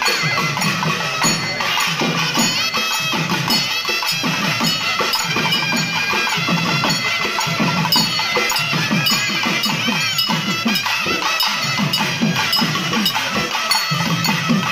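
Traditional festival music: drums beaten in a fast, dense rhythm, with a reed wind instrument playing a wavering melody over them.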